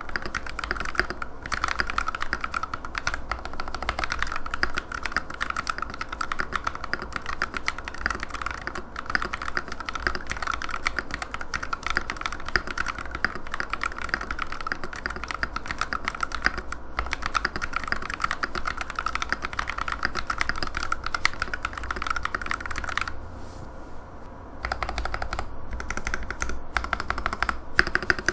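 Fast, continuous typing on a Womier WK61 60% hot-swap mechanical keyboard, a dense stream of key clacks, with a brief pause about 23 seconds in.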